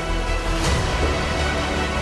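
Background music: held chords over a steady low bass, with one percussive hit a little over half a second in.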